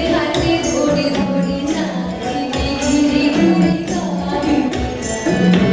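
Music: a sung song over a steady percussion beat, playing as dance accompaniment.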